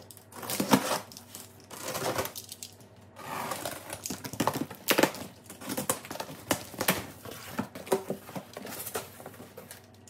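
Packing tape on a cardboard box slit with a blade and torn off, then the cardboard flaps pulled open: irregular scraping, ripping and crackling with sharp clicks.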